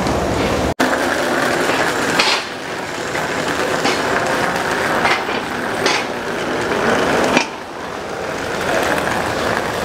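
Steady background rumble of a crowd of passengers walking along a covered metal gangway, with a few scattered knocks and clunks of footsteps and luggage. The sound cuts out for an instant just before a second in.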